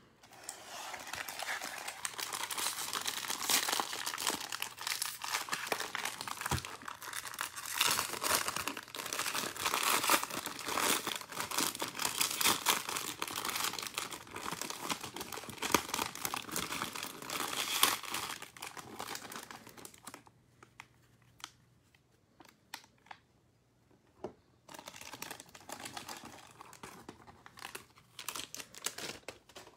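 Foil wrapper of a Bowman Draft super jumbo card pack being torn open and crumpled, a dense crinkling that goes on for about twenty seconds. After a short lull, quieter crinkling and rustling comes back near the end.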